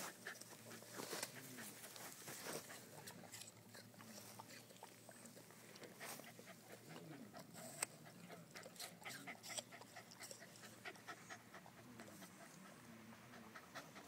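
Rottweiler gnawing and crunching an apple, with irregular crisp bites and mouth clicks, and panting between them.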